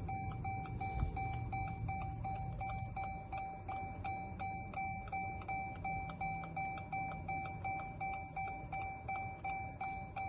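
Electronic warning chime repeating steadily, about two and a half chimes a second, each a sharp ping that fades.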